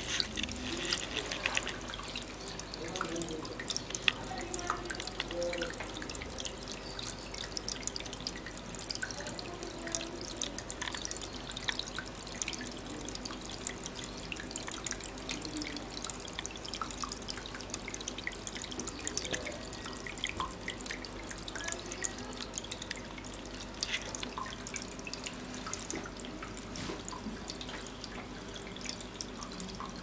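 Water trickling and splashing steadily down a small tabletop decorative waterfall fountain into its basin, full of fine drips.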